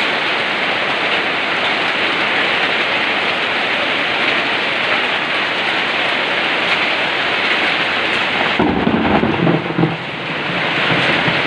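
Heavy rain and hail pelting down in a steady loud hiss. About nine seconds in a low rumble rises for a second or so, then eases.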